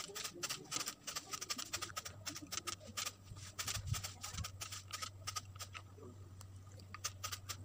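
Rapid, irregular crisp clicking from a barber's hand tools working on the hair, several clicks a second, over a low steady hum.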